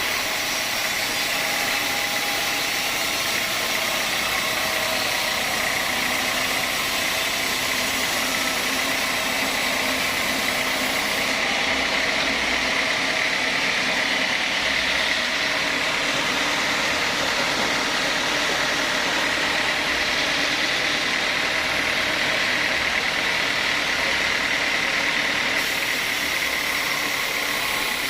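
Sawmill machinery running steadily: a continuous mechanical drone with a hiss and a steady high whine, unchanging in level.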